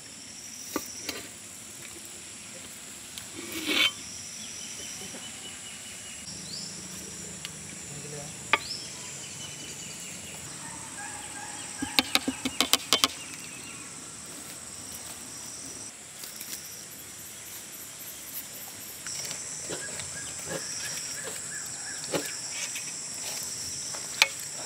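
Insects chirring steadily on a high pitch, with scattered sharp clicks and knocks, among them a quick run of about six clicks around the middle.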